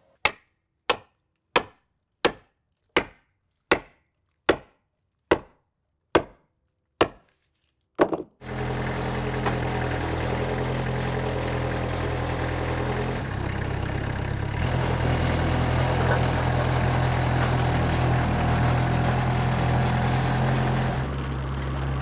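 About eleven sharp clicks, evenly spaced roughly three-quarters of a second apart with dead silence between them. Then, about eight seconds in, the sawmill's engine starts running steadily, its tone shifting a little twice.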